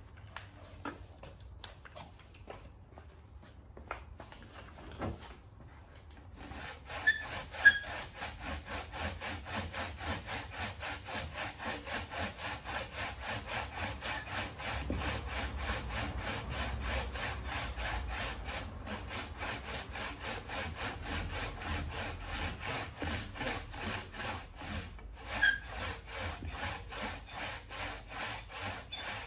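Hand saw cutting through wood in quick, even back-and-forth strokes, starting about six seconds in and keeping a steady rhythm. A few sharp clicks stand out as the sawing gets going and once more near the end.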